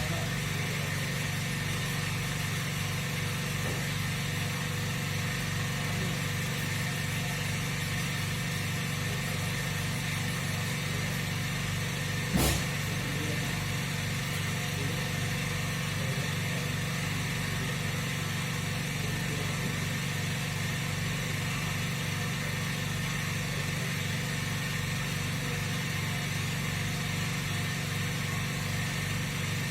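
Steady mechanical hum from running machinery, unchanging throughout, with one sharp click about twelve seconds in.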